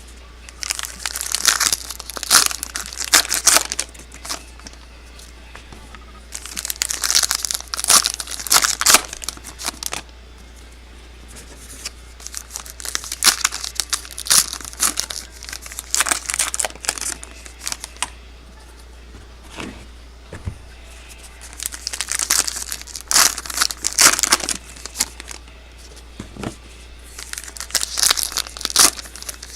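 Trading card pack wrappers being torn open and crumpled, in bursts of crinkling and tearing a few seconds long that recur every few seconds.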